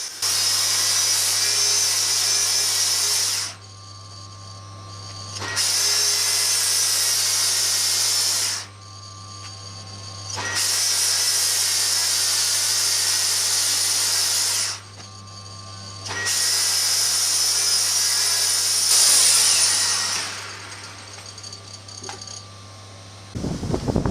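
A power tool run in four bursts of about three to four seconds each, with short pauses between, over a low steady hum.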